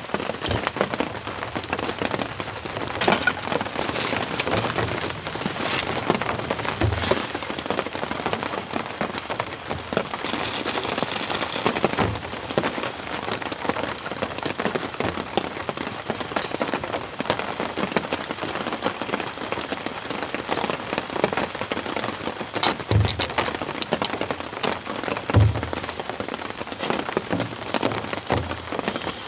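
Steady rain falling, a dense patter of drops with scattered sharp ticks and a few soft low thumps through it.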